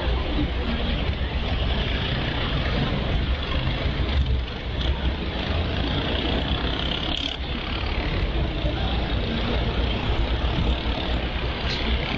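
Steady outdoor street noise: a continuous low rumble of road traffic with faint voices mixed in.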